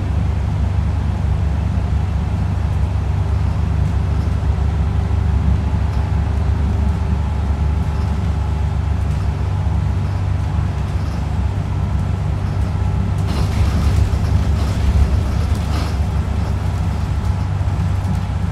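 Bus in motion heard from inside the passenger cabin: a steady low drone of engine and road noise. A few seconds of extra hiss join in about three-quarters of the way through.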